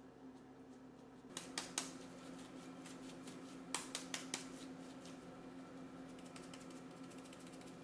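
A scatter of sharp clicks and taps, with a few louder ones in two short clusters and fainter ticks after them, over a steady low hum.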